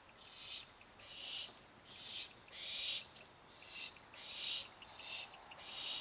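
Barn owl nestlings giving their hissing begging calls, a string of rasping hisses a little more than one a second, some overlapping, as they beg to be fed.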